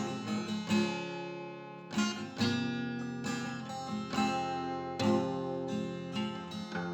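Acoustic guitar playing an instrumental song, strummed chords ringing out one after another.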